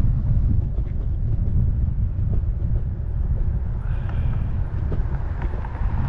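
A motor scooter riding over cracked, jointed concrete pavement: steady low rumble from wind and road noise, with a few brief knocks as the wheels cross cracks and seams.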